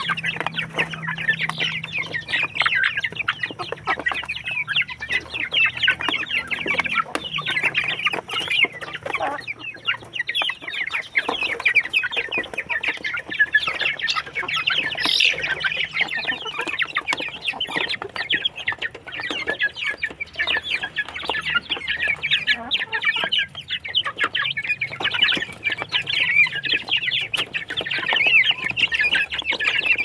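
A flock of chickens feeding at a trough, clucking continuously in a dense, overlapping chatter.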